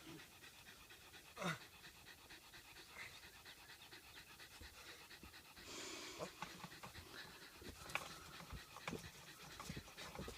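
A dog panting, faint, with scattered small knocks and scrapes.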